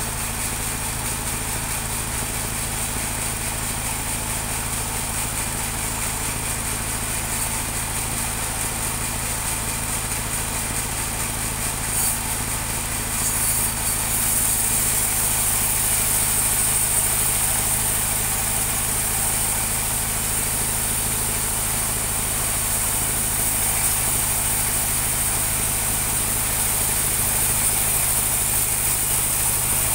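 Portable band sawmill running steadily, its motor humming and the band blade hissing; it grows a little louder, with more hiss, from about halfway through.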